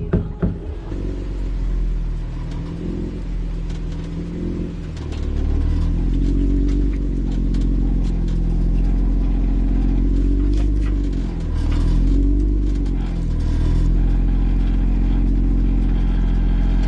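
Jeep engine running, with a couple of knocks at the start, then louder from about five seconds in, its revs rising and falling several times as it eases forward to take up the slack in the kinetic recovery rope.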